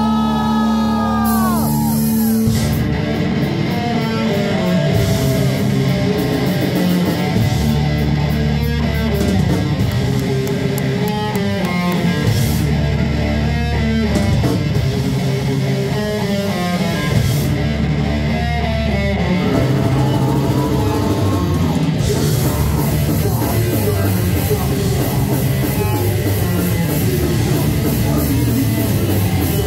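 Live heavy metal band playing: distorted electric guitars, bass and drum kit. A held chord opens, and the full band with drums comes in about two and a half seconds in.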